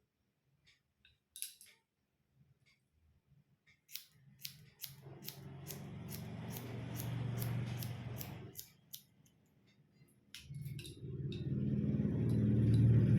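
Hair-cutting scissors snipping through the client's hair. A few faint clicks at first, then from about four seconds in quick repeated snips with a rasping crunch as the blades close through a thick section, in two long stretches with a short pause between them.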